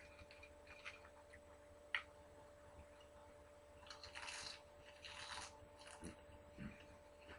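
Faint handling and mouth sounds of a person eating a sandwich: a sharp click about two seconds in, then two short rustling hisses as food goes to the mouth, and soft thumps near the end.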